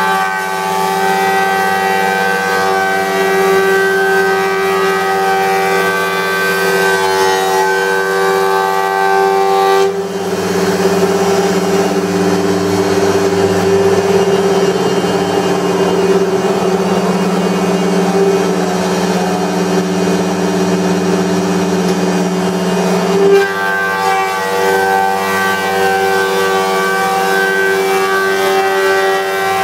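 Wood-Mizer planer running with a steady motor and cutter-head whine. About ten seconds in the sound turns rougher and noisier for some thirteen seconds, then the plain whine returns.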